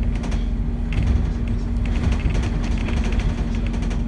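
New Routemaster double-decker bus moving along a street, heard from inside on the upper deck: a steady hum over a low rumble.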